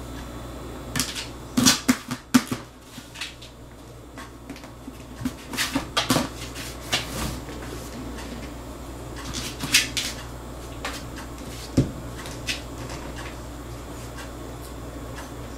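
A cat pawing and clawing at a plastic food container with a red lid: scattered taps, scratches and knocks of paws on the plastic, coming in clusters, with one sharper knock about twelve seconds in.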